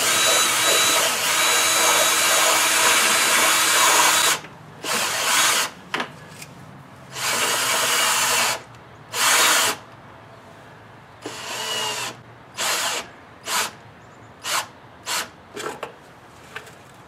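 Cordless drill boring a hole through the air box: one long run of about four seconds, then several shorter bursts that become briefer and more widely spaced toward the end.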